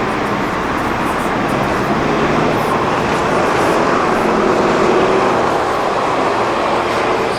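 Steady wind and road noise at a roof-mounted camera on a moving van, with tyres and engine droning underneath.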